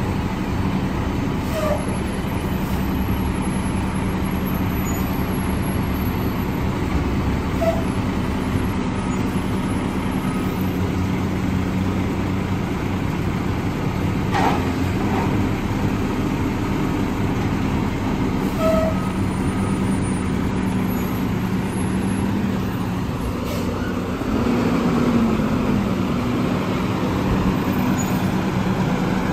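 Mack front-loader garbage truck's diesel engine running steadily, with a short burst of air hiss about halfway through. In the last few seconds the engine gets louder and its pitch rises as the truck pulls forward.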